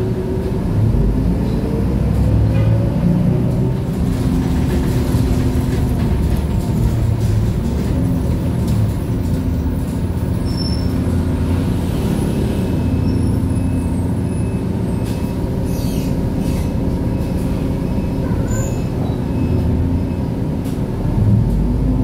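City bus engine and road noise heard from inside the moving bus, a steady rumble whose engine pitch rises as it speeds up near the start and again near the end.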